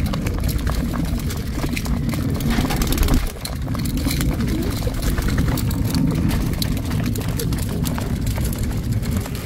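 Flock of pigeons feeding at a metal trough of mixed grain: rapid clicking pecks over a continuous low cooing.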